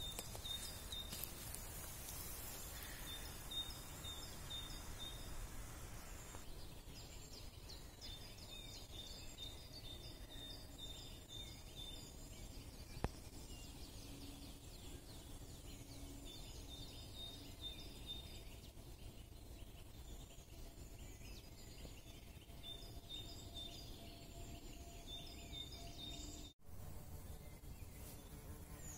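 Faint woodland ambience: small birds singing in repeated short runs of high chirps over a low rumble. The sound drops out for an instant near the end.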